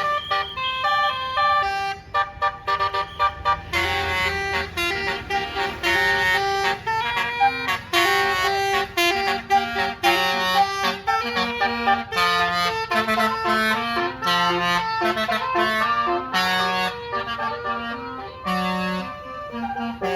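Bus basuri 'telolet' air horn playing a melody of short, stepped notes that runs on without a break.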